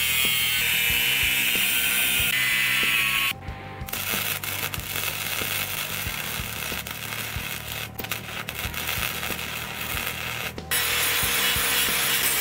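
Angle grinder with a cutoff wheel cutting through a steel saw blade, a steady whining grind. About three seconds in it cuts off and arc welding crackles and sizzles for about seven seconds. Near the end an angle grinder with a sanding disc grinds steel loudly.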